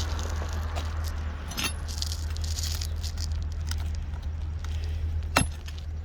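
Light clinks and rattles of roofing tools and nails being worked among asphalt shingles, over a steady low rumble. There is one sharp click about five and a half seconds in.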